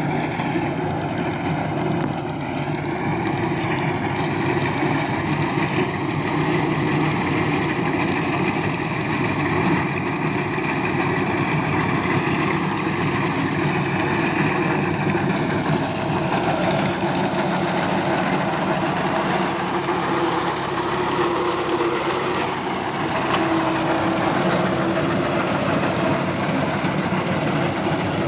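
Tractor engine running steadily as the tractor drives a front-mounted reaper through standing wheat, cutting the crop.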